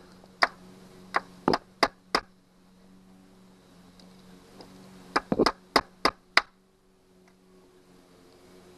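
Hammer tapping a nail used as a punch against the rusted, broken screw stud of a Johnson 90 hp outboard: sharp metallic knocks, about five in the first two seconds, then a pause, then another quick run of about six.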